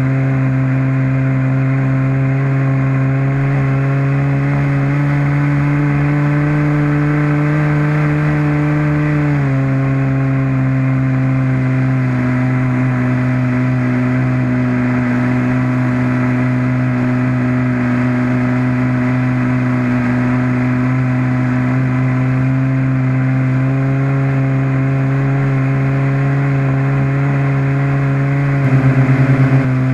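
Model aeroplane's small combustion engine running at steady throttle, one buzzing note. The pitch creeps up and then drops a step about nine seconds in, and falls slightly again with a pulsing loudness near the end.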